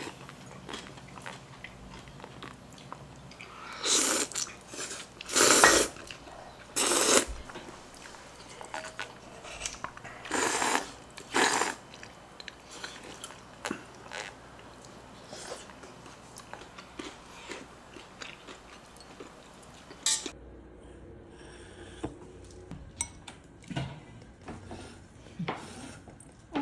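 A person drinking broth from a ceramic bowl with loud, short slurps, five of them in the first half, and quiet chewing between. After a cut about twenty seconds in, there are soft clicks and rattles as sesame seeds are shaken from a glass jar.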